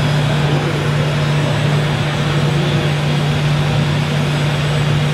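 Steady, unchanging engine drone with a constant low hum, from a radio-controlled Bell B40D articulated dump truck model moving slowly at low throttle.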